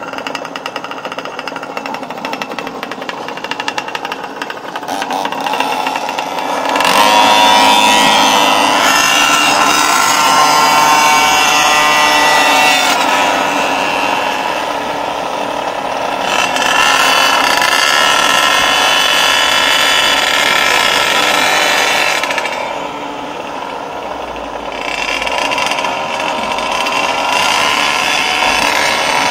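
Goped gas scooter's stroked CY47 two-stroke engine revving hard under throttle, its pitch climbing about a quarter of the way in, falling away twice as the throttle eases off and climbing again each time.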